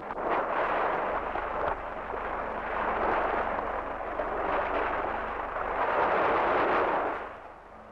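Sea surf breaking on a rocky shore: a heavy rushing noise that starts abruptly and swells and eases in waves, dropping away near the end.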